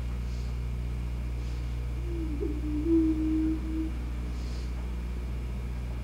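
A prairie chicken's booming call, played through a TV speaker: one low, hollow, hooting moan lasting about two seconds near the middle, bending up and then holding its pitch. A steady low hum runs underneath.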